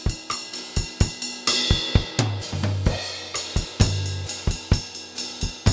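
Acoustic drum kit playing a steady groove of kick, snare and hi-hat. About one and a half seconds in a cymbal crash rings out, followed by a run of low tom strokes.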